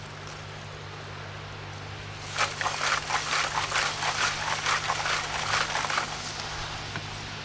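Lumps of wood charcoal poured from a plastic crate into a sack: a dense run of clattering and clinking that starts a couple of seconds in and lasts about four seconds.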